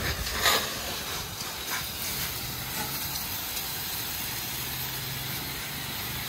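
Water jet from a garden-hose spray nozzle striking a tractor's engine, bodywork and tyre in a steady spray, with a few brief louder splashes in the first two seconds.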